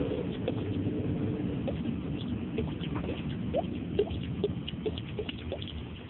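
Water gurgling and plinking in a sink: irregular short blips that rise in pitch, several a second, over a steady wash of noise.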